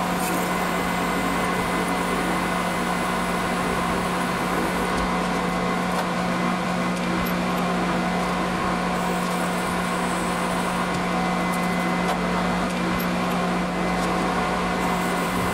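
Mill spindle motor running steadily with an even hum while drilling holes in small steel parts with a body drill; a high hiss comes and goes above it.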